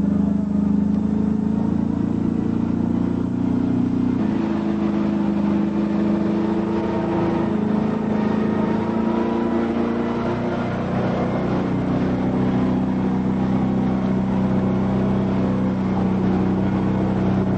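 A military cargo truck's engine running hard under load, its pitch shifting up and down a few times as the truck tries to drive its wheels out of deep mud.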